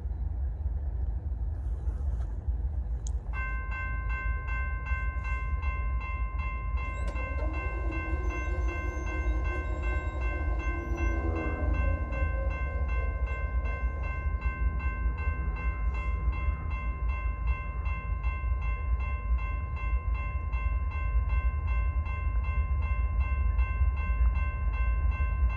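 Railroad crossing warning bell starts about three seconds in and rings in a rapid, even ding as the crossing activates for an approaching train and the gates come down. A lower wavering tone rises and fades around the middle, over a steady low rumble.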